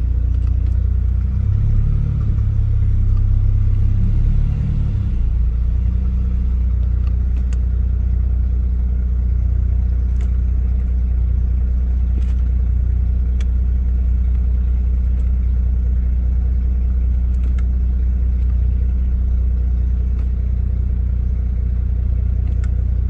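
BMW 750iL's 5.4-litre V12 engine idling with a steady low hum, changing briefly in the first few seconds, with a few light clicks. The owner suspects a faulty mass airflow sensor, as it revs but then wants to die out.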